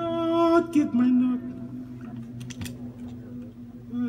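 Live solo music: a held note that steps down to a lower sustained note about a second in, over a steady low drone, with a few faint clicks.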